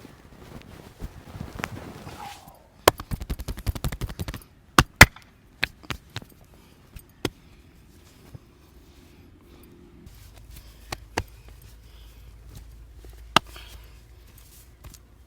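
Head massage: soft rubbing of hands over hair and skin, then a rapid run of sharp hand slaps lasting about a second and a half, followed by single sharp smacks a second or more apart, the loudest two close together about five seconds in.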